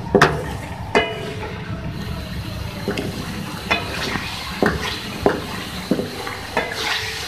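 Chicken pieces with ginger-garlic paste and green chillies sizzling and bubbling in oil and their own juices in a wok, stirred with a wooden spatula that knocks and scrapes against the pan about seven times.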